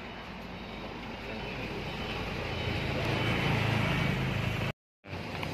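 Steady motor-vehicle engine and road noise, growing louder in the second half, broken by a short dead gap near the end.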